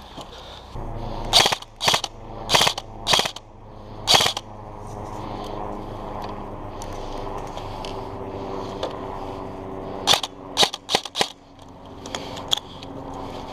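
Airsoft guns firing single shots as sharp cracks in two groups: about five spaced out over the first few seconds, then a quicker string of five or six about ten seconds in.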